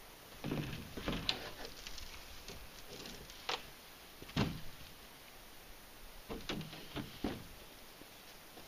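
Canoe hull knocking and scraping as it is hand-lifted and rolled onto its side: a cluster of knocks about half a second in, single sharp knocks near the middle, the loudest about four and a half seconds in, and a few more knocks near the end.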